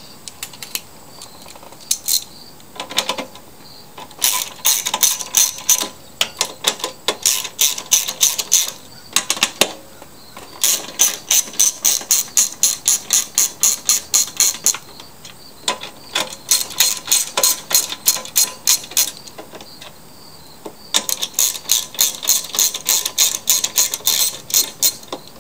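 Socket ratchet clicking as it turns the gas-tank bolts out of a lawnmower engine. It comes in several runs of quick, even clicks, about five a second, with short pauses between the runs.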